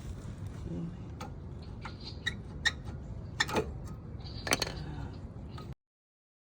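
Scattered sharp metallic clicks and clinks of hand tools and brake caliper parts being handled during a front brake pad change, about half a dozen over four seconds. The sound cuts off abruptly near the end.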